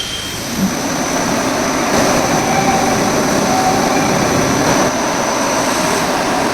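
CNC duplex milling machine running: a steady machining noise with a thin high whine, getting a little louder about two seconds in.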